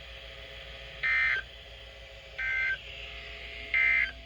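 NOAA Weather Radio's SAME digital data code sent three times, each a short two-tone warbling data burst about a third of a second long, roughly a second and a half apart, over a faint steady low hum. The short bursts right after the warning text fit the end-of-message (NNNN) code that closes the alert.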